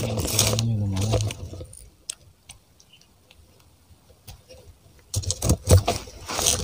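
A brief man's voice at the start, then after a pause a quick run of sharp clicks and rustles from hands handling fishing tackle, starting about five seconds in.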